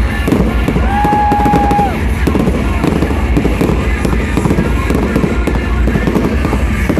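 Fireworks crackling and popping in rapid succession, with music playing loudly alongside.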